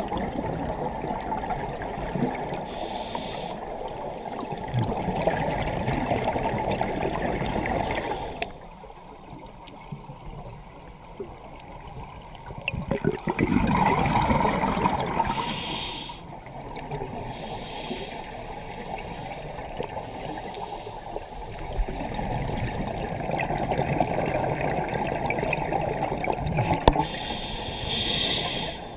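Scuba diver's breathing through a regulator, heard underwater through the camera housing: long rushing, bubbling exhalations of several seconds, with quieter gaps and a few short high hisses between them.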